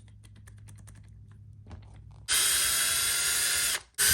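Electric drill-driver running for about a second and a half with a steady motor whine, stopping, then starting again near the end, after a few faint handling clicks; it is backing screws out of the RC truck's chassis.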